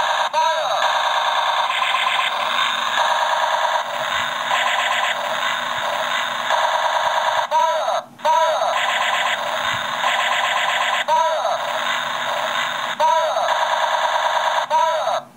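Battery-powered knockoff Gobots Convertible Laser Gun toy playing its electronic laser-gun sound effect on a continuous loop: a rapid electronic pulsing with swooping zaps every second or two. It cuts out briefly about eight seconds in and again near the end.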